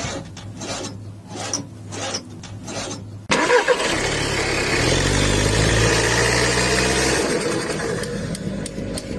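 Car engine being cranked, with a low hum and a series of knocks, until it catches suddenly about three seconds in. It then revs up and settles back toward idle.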